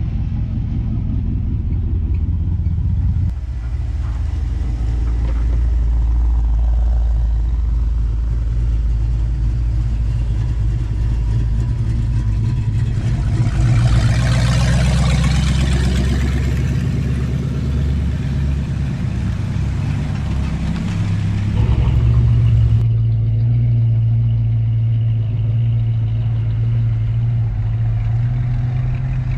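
Car engines running at low speed, a deep steady rumble that shifts pitch a few times. About halfway through, a louder rushing noise rises and fades over a few seconds.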